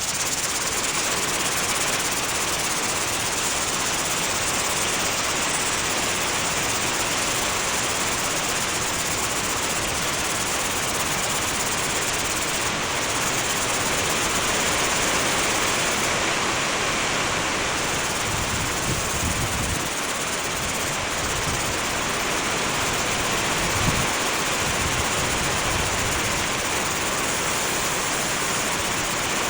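Steady, even hiss of rain mixed with sandpaper rubbing, with a couple of faint low thuds in the second half.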